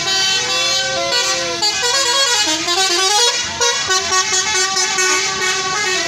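Basuri telolet horn on a tour bus playing a tune: several horn trumpets sound together in held notes that step up and down, with a run of notes going down and back up about halfway through.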